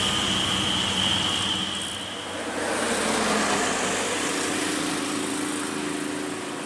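Diesel engines of heavy trucks labouring up a steep hill close by. A steady high whine fades out about two seconds in, and another truck's engine note builds from about four seconds in as it approaches.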